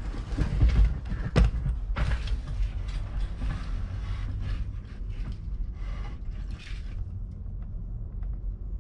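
Footsteps crunching and crackling through dry fallen bamboo leaves and stalks, with a few heavier thuds in the first two seconds; the crackling fades out about seven seconds in. A steady low rumble runs underneath.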